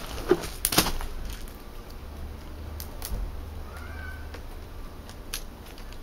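Soaked willow rods clicking and creaking as the end of a rod is worked and tucked into the woven spiral of a small willow basket, with a few sharp clicks just under a second in and scattered lighter ones after.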